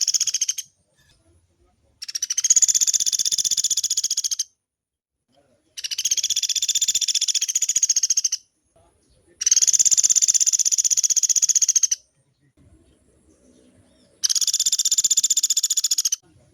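Pelatuk beras woodpecker giving long, fast rattling trills, four full rolls plus the end of one at the start, each about two seconds long with short pauses between.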